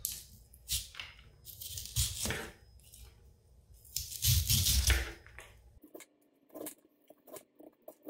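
Handheld corn stripper's blade shaving kernels off a raw ear of sweet corn in about three scraping strokes, followed by small scattered clicks as loose kernels drop onto a plastic cutting board.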